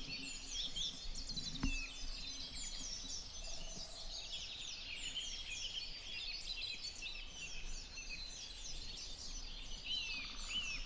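Dawn chorus of many songbirds singing at once, a dense run of overlapping high chirps and trills. There is a single sharp click about one and a half seconds in.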